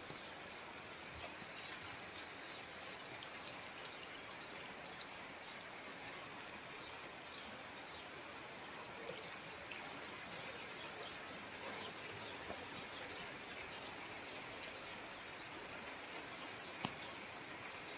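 Steady rain falling: an even hiss, with scattered drips and taps.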